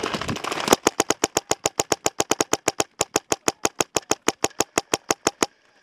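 A Dye DM14 electronic paintball marker firing a long, rapid string of shots, about eight a second, for roughly five seconds, then stopping suddenly. A brief dense clatter of paintball fire comes just before the string starts.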